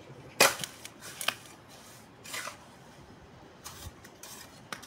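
Steel mason's trowel scraping mortar out of a bucket and spreading it on a hollow clay brick: a sharp scrape about half a second in, then several softer scrapes.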